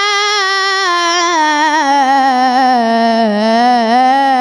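A boy munshid singing an Egyptian ibtihal, unaccompanied, holding one long ornamented vowel that sinks slowly in pitch and climbs again near the end.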